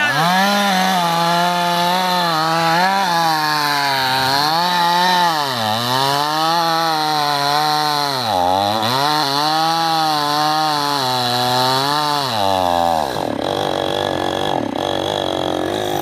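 Large Stihl two-stroke chainsaw running at high revs while cutting into the base of a tree trunk, its engine pitch dipping again and again as the chain bogs down in the wood. Near the end the steady engine note drops away.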